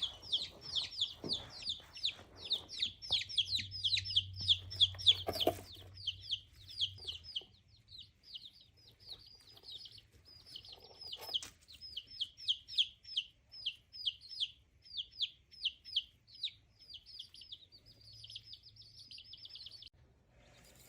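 Buff Orpington chicks peeping in a fast, steady run of short falling peeps, several a second, thinning out for a few seconds in the middle and then picking up again; a soft knock about five seconds in. The owner takes this bedtime calling for her young rooster gathering the chicks into one spot before they sleep, like a homing call.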